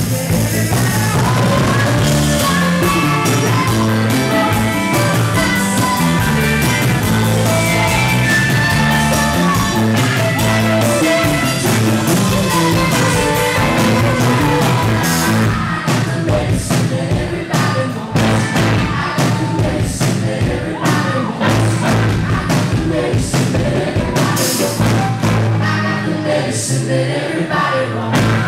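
Live rock band playing, with a woman singing lead over electric guitar, bass guitar and drums. From about halfway the sharp drum and cymbal hits stand out more.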